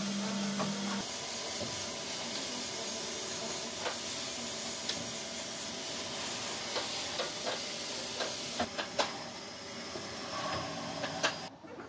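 Steady hiss with scattered small clicks and taps as fingers press a strip of vinyl sticker onto a painted wooden model. The hiss cuts off abruptly near the end.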